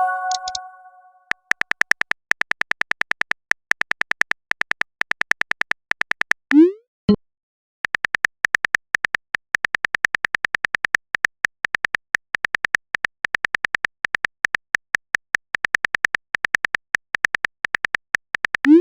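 Rapid synthetic typing ticks from a chat-message animation, each tick with a thin beep in it, running in long stretches with short gaps. A short rising 'bloop' message sound comes about six and a half seconds in and again at the very end, and a brief chime sounds right at the start.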